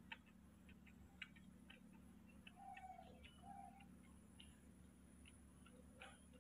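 Near silence with faint, irregular little clicks from a newborn baby monkey suckling milk from a plastic bottle nipple, and two short faint squeaks a little before the middle.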